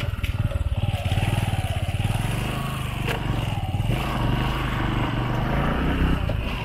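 Motorcycle engine pulling up a steep, rough dirt track, its note climbing over a few seconds and dropping off near the end.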